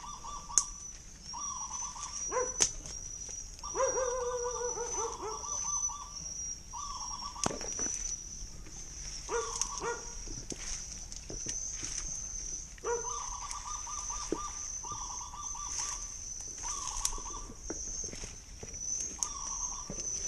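Steady high-pitched insect drone, with short pitched animal calls repeated every second or two and scattered rustling and snapping of plants and twigs.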